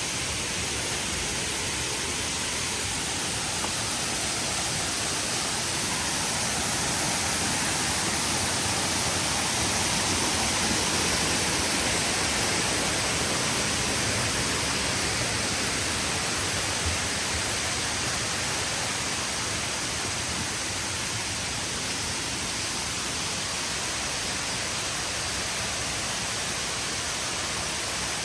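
Rushing water of the Erawan Falls cascades: a steady hiss that swells a little toward the middle and eases off again.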